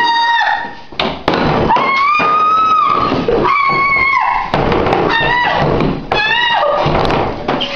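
A woman screaming over and over, about five long high-pitched screams. Two thuds about a second in, as an axe strikes through the door.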